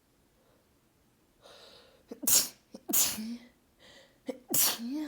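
A person sneezing three times in quick succession, each preceded by a sharp catching inhale and ending in a short voiced tail. These are rapid-fire sneezes of the kind brought on by a cold or cold air.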